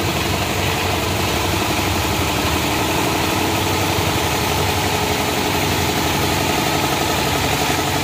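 Diesel engine of a tractor-towed road oil sprayer idling steadily with a fast, even chugging while tack-coat oil is sprayed onto the road before the final bitumen layer.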